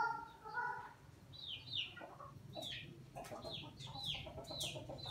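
Chickens in a coop calling: a string of short, high peeps that fall in pitch, coming about every half second, with lower clucks in between.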